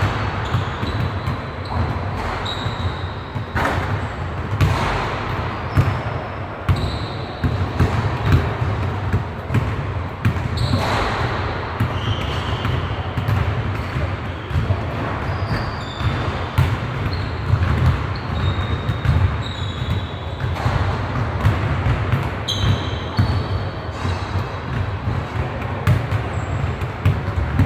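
Basketballs bouncing on a hardwood gym floor, many irregular thuds with an echo from the large hall, mixed with short high squeaks of players' shoes and a steady low hum.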